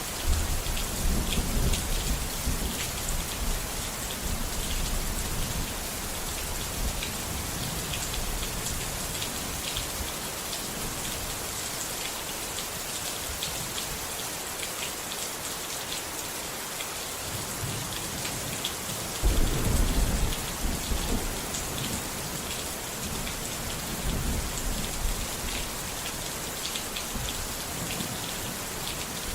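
Steady rain falling, with low rolls of thunder rumbling near the start and again past the middle.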